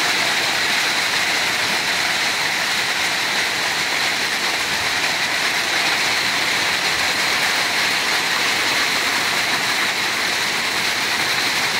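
Torrential rain pouring down at its hardest, a loud, steady, unbroken hiss of downpour.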